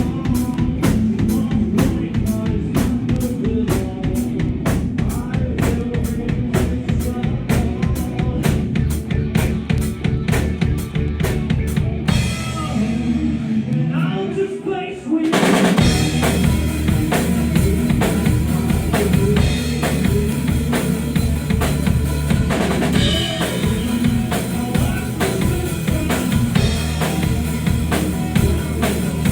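Live rock band playing an instrumental passage driven by a steady drum kit beat. About twelve seconds in, the band drops back to a sparse, quieter break, then comes crashing back in full about three seconds later.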